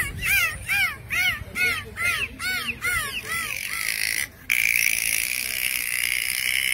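Dolphin whistling: a quick run of about ten short whistles that each rise and fall in pitch, roughly three a second, then a longer, steadier whistle that breaks off briefly past the four-second mark and resumes.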